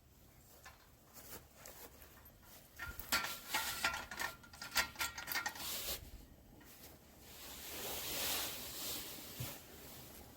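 Light clattering and clinking of small hard objects, in quick clusters for a few seconds, one knock leaving a short ringing note, followed by a rush of noise that swells and fades.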